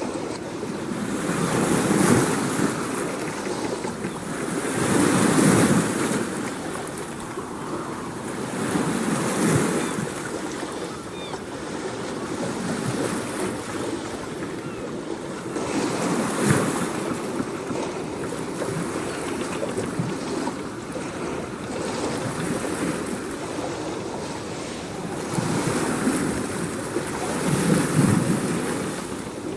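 Surf washing onto a shore in slow swells that rise and fall every few seconds, with a wind-like rush.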